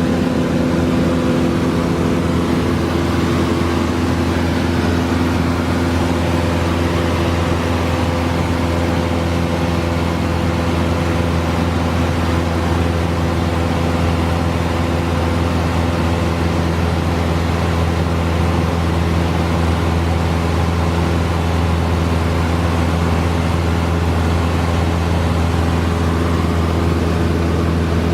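Cessna 172 heard from the cockpit in flight: the piston engine and propeller keep up a steady drone at constant power, with a deep hum and several steady tones over a rushing noise.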